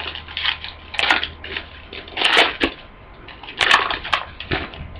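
Football trading cards being handled and flipped through: a series of irregular rustling, sliding swipes as one card is pushed past another.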